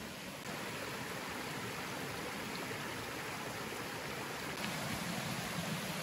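Running water of a forest stream, a steady even rush that steps up slightly about half a second in.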